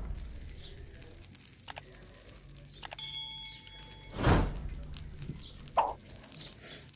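Metal cookware being handled: one ringing clink about three seconds in, among small knocks and two loud brief whooshes, at the start and about four seconds in.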